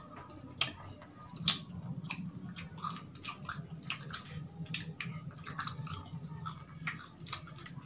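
Close-miked chewing of fried street food: wet mouth smacks and many short sharp clicks, with crispy fried chicken being pulled apart by hand.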